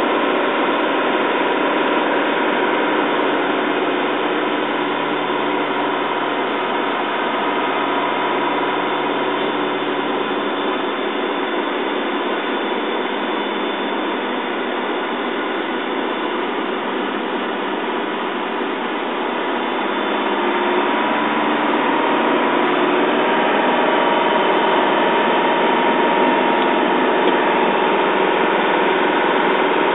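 Mercedes-Benz LP 808 truck's diesel engine running on the move, heard from inside the cab along with road and cab noise. It eases off a little mid-way, then grows louder about two-thirds of the way through.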